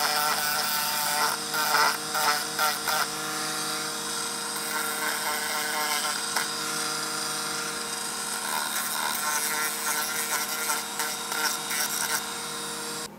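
Handheld rotary tool spinning a sanding drum at high speed, a steady whine that wavers as the drum is pressed against the edges of a stack of plywood pieces. It cuts off suddenly near the end.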